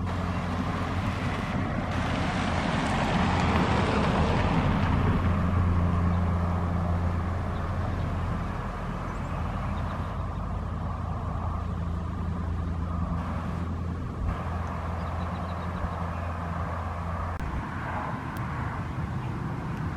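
Steady low mechanical hum, with the rush of a passing vehicle building about two seconds in and fading away a few seconds later.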